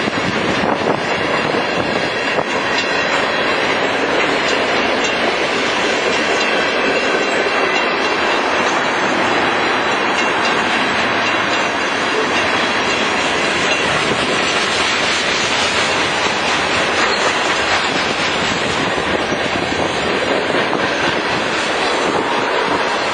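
Freight train cars rolling past at close range, a steady loud rolling noise of steel wheels on the rails that keeps up without a break.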